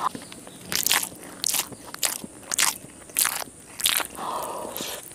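Close-miked chewing of a mouthful of chicken biryani with raw red onion: six crisp crunches about half a second apart, then softer wet chewing near the end.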